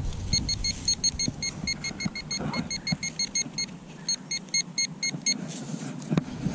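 Handheld metal-detecting pinpointer probe beeping rapidly, about six short high beeps a second, as it is worked in a dug hole: it is signalling a metal target close by. The beeping stops about five seconds in, over soft scraping of soil, and a sharp knock comes near the end.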